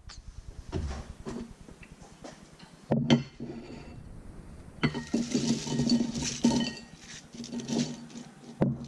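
Crockery handling: a ceramic bowl knocks down onto a wooden board about three seconds in, with light clinks and a crisp rustling as battered calamari rings are moved into it by hand.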